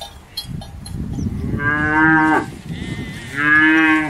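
Cows mooing: two long, steady calls, the first about a second and a half in and the second about a second after it ends, over a low rustle.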